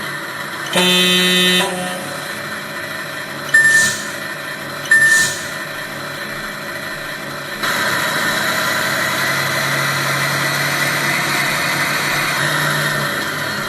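RC truck sound module imitating a DAF XF 480's diesel engine running, played through the model's small speaker. There is a short horn blast about a second in and two brief hisses around four and five seconds. From about halfway through the engine sound grows louder, as if revving under acceleration.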